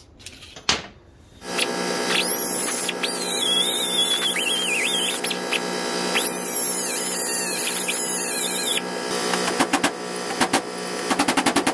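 Right-angle die grinder with a cut-off wheel running with a steady whine and squealing in two long passes as it cuts into the old differential carrier bearing's inner race. Near the end comes a quick run of hammer blows on a chisel to crack the cut race so the bearing releases.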